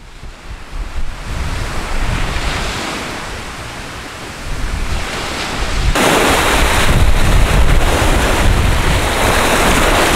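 Lake waves breaking on the shore in a strong wind, with wind buffeting the microphone in a low rumble. The surf gets suddenly louder and fuller about six seconds in.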